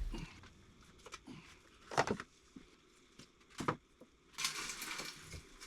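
Light handling noises: a couple of sharp clicks or knocks, then a soft rustle near the end, as small objects are handled and packed.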